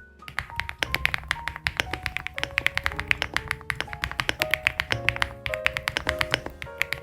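Fast typing on a mechanical keyboard fitted with Keygeek POMKIN full-POM switches: a dense stream of deep, thocky keystrokes. A soft melodic music track plays underneath.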